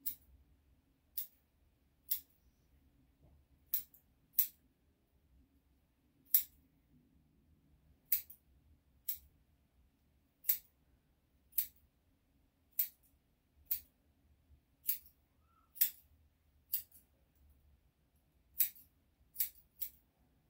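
Grooming scissors snipping dog hair in single sharp cuts, about one a second.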